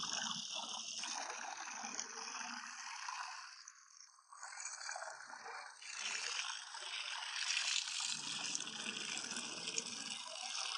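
Water running from an outdoor standpipe tap, splashing into a plastic bucket and onto the concrete as clothes are dunked and rinsed in it. The splashing drops away briefly about four seconds in.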